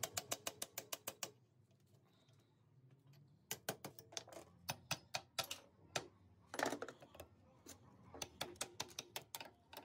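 Small hammer tapping on a steel truck tie rod end in quick runs of light metallic strikes, with short pauses between the runs. The loudest strike comes about two-thirds of the way through.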